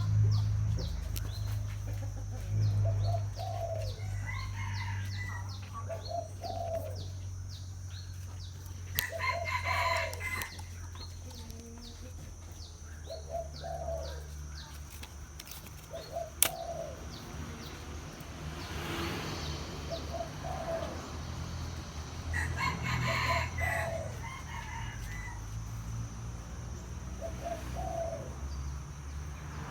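Spotted dove cooing, short low phrases repeated every few seconds. Twice, at about ten seconds and again past twenty, a louder, higher call like a rooster crowing cuts across, over a steady low hum.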